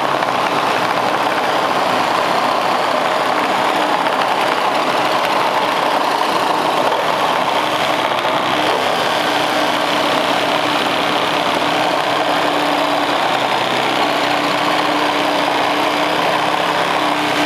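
Two 12-volt compact reciprocating saws, a DeWalt DCS312 and a Milwaukee M12 Fuel Hackzall, running at once with blades sawing through a treated 2x4, a steady loud buzz of motors and blade strokes. Near the end one blade is held up by a knot in the wood.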